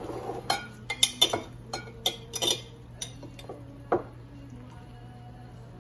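A metal utensil clinking against a glass bowl in a quick, irregular run of sharp clinks, which stop about four seconds in. A low steady hum runs underneath.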